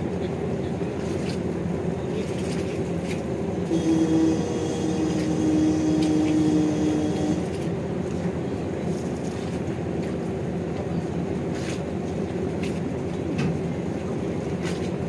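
Steady low rumble of a ship's engines. About four seconds in, a single long horn blast is held for roughly three and a half seconds.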